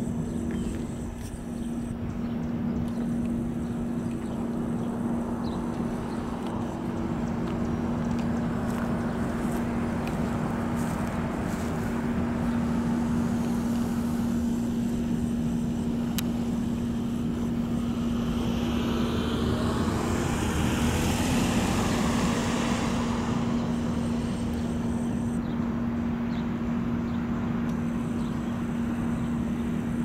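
Road traffic by an intersection: a steady low hum throughout, with a vehicle passing that swells and fades, loudest about twenty seconds in.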